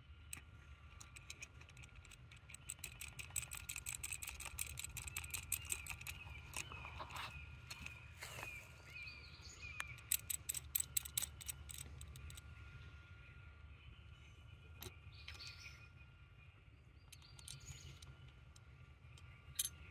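Hand-turned carbide cutter of a Timberline-style chainsaw sharpener rasping against a chain tooth: a fast run of sharp clicks that starts about two seconds in, grows loudest around ten seconds and then thins out. Birds chirp faintly in the background.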